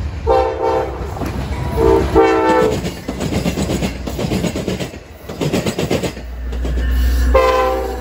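Diesel passenger train horn sounding two chord blasts as the train approaches, the second longer, then the train passing with wheels clattering over the rail. Near the end a low engine rumble comes in and a horn sounds once more.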